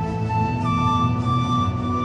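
Background music: a slow melody of long held notes over a steady low accompaniment.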